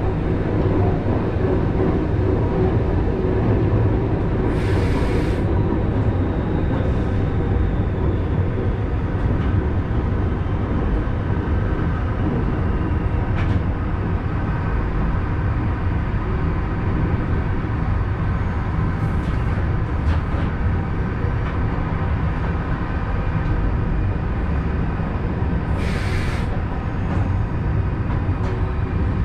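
Vintage electric suburban train running steadily along the track, heard from inside the driver's cab: a continuous rumble of wheels on rail with a steady whine over it. Two short hisses break in, about five seconds in and again near the end.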